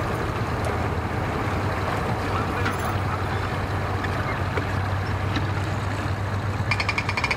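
Mercury outboard motor idling steadily as a small bay boat motors slowly through calm water, a low steady hum. Near the end a loud, rapid, rhythmic buzzing rattle starts.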